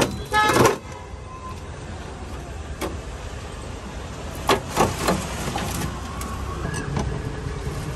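Steel container lids and ice blocks knocking in a steel tray: a loud clink with a brief metallic ring at the start, then scattered knocks about three seconds in and again around five seconds, over a steady rumble of street traffic.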